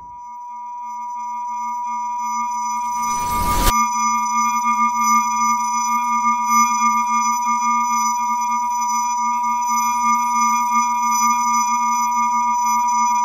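Steady high-pitched ringing tone over a low hum, the film sound effect of ears ringing after a crash, swelling up over the first few seconds. A short rushing noise about three seconds in, after which more high ringing tones join.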